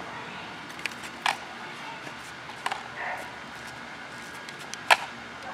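A few scattered sharp plastic clicks and taps from a toy remote-control car being handled, the loudest about five seconds in, over a faint steady background.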